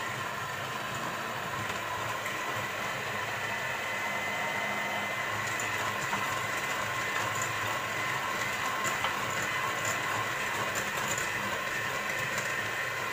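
Electric hand mixer running steadily with a motor whine, its beaters whisking liquid cake batter in a glass bowl.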